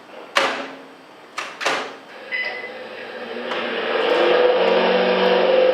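A few sharp knocks, then a microwave oven switching on and running. Its steady hum builds over about a second and then holds loud.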